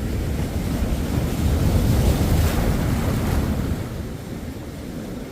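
Ocean surf: a wave swells to a peak about halfway through, its hiss breaking over a low rumble, then eases off, with wind buffeting the microphone.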